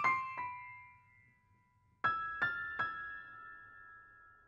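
Electric piano notes played as a short title sting: two notes ring and fade away in the first second, then after a pause three quick notes about two seconds in ring on and fade.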